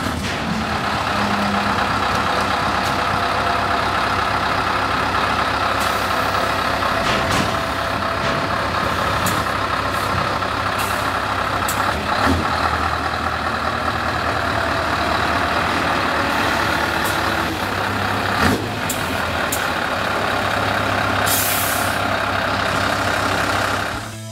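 Scania R500's 15.6-litre V8 with open exhaust pipes idling steadily, with short hisses of compressed air now and then and a longer hiss near the end.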